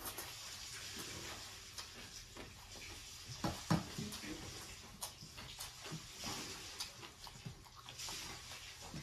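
Wet chewing and lip-smacking of someone eating rice and gravy by hand, in irregular short clicks and squelches, loudest a little over a third of the way in. Soft sounds of fingers mixing rice on the plate come between mouthfuls.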